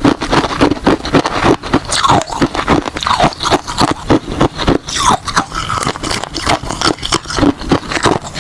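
Ice being bitten and chewed close to the microphone: a rapid, loud run of crunches, several a second, with squeaky scraping as the ice grinds between the teeth.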